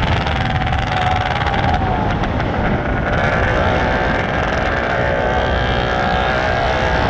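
Superbike engine running at road speed, with heavy wind rumble on the microphone. The engine note shifts a little about two to three seconds in.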